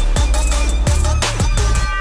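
Electronic outro music with heavy sub-bass, a driving drum beat and falling bass sweeps.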